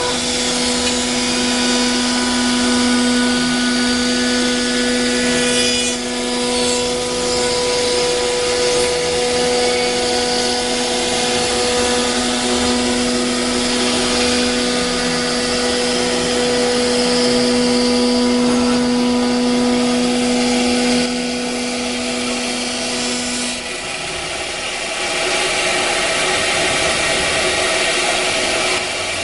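CNC router with a 6 kW HSD spindle cutting: a steady high whine from the spindle over the hiss and rasp of the cut. About three quarters of the way through, the whine drops out and the hiss carries on.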